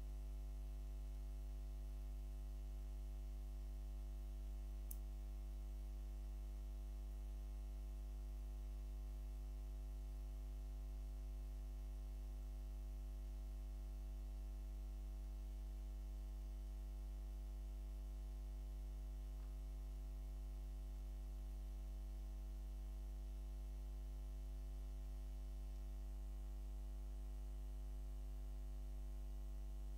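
Steady low electrical mains hum with a buzz of overtones above it, unchanging throughout, with one faint tick about five seconds in.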